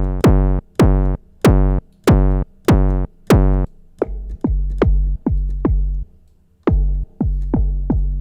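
Heavily distorted, hardstyle-type synthesized kick drum made from an audio-feedback tone, played over and over at about one and a half hits a second, each hit with a quick downward pitch drop. About four seconds in the hits turn darker and lose their bright top as the modulated low-pass filter closes.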